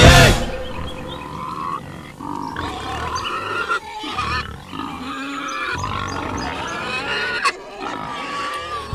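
Animal calls: wavering, pitched cries that come and go.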